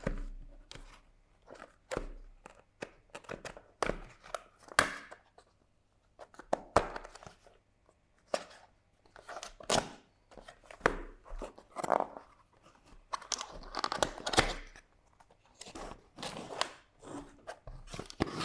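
A small cardboard product box handled and opened by hand: irregular scrapes, taps and crunching of the cardboard flaps.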